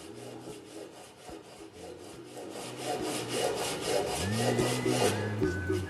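Sandpaper rubbed back and forth by hand over a wooden whistle, in quick even strokes of about five a second that grow heavier toward the end. Steady pitched tones come in about four seconds in.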